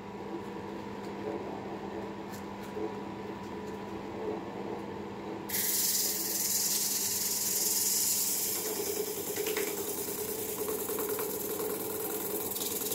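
Wood lathe motor humming steadily while it spins. About five seconds in, sandpaper on a block is pressed against the turning plum-wood bowl, adding a loud, even sanding hiss that carries on to the end.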